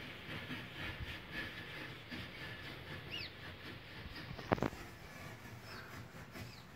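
Quiet outdoor ambience with low rustling and shuffling, a few short high chirps that fall in pitch, and a single sharp click about four and a half seconds in.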